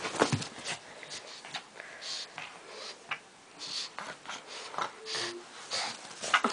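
A pug's short, noisy breaths, one or two puffs a second, as she wrestles a stuffed tiger toy, with small scuffs from the plush toy on the carpet.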